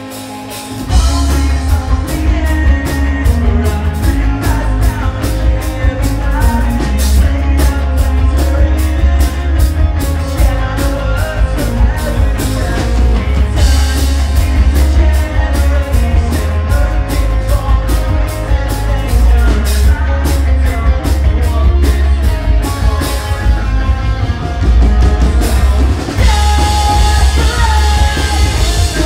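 Live pop-punk band playing loud: the full band, with electric guitar and drum kit, comes in hard about a second in after a quieter guitar lead-in, and a singer's vocals ride over the band.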